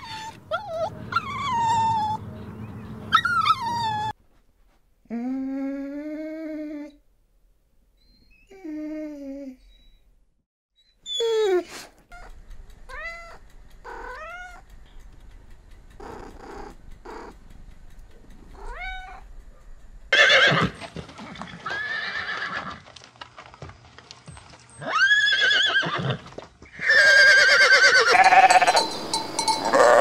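A run of animal calls: a small dog's high, falling whines at the start, then a domestic cat meowing again and again, followed by louder, harsher calls in the last ten seconds.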